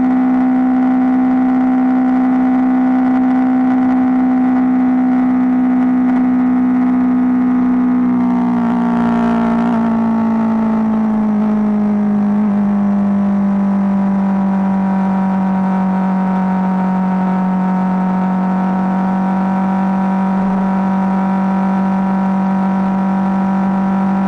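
BMW GS motorcycle engine running while riding along at road speed. Its steady note glides down in pitch about eight seconds in as the revs fall, then holds steady at the lower pitch.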